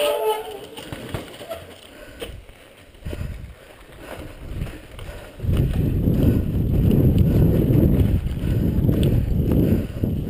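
Mountain bike rolling down rough rock: a low rumble of the tyres and a rattle of the bike and mounted camera, with a few knocks early on, loud and continuous from about halfway in.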